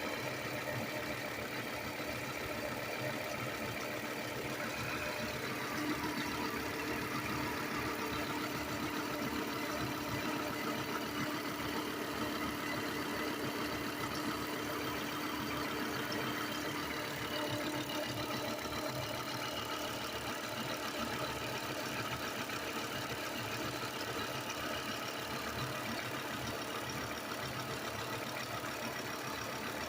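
1998 Volvo S70's inline five-cylinder engine idling warm, with a rhythmic chirping from the engine's accessory drive. The owner could not pinpoint it to any one pulley with a stethoscope and guesses the crankshaft pulley/harmonic balancer.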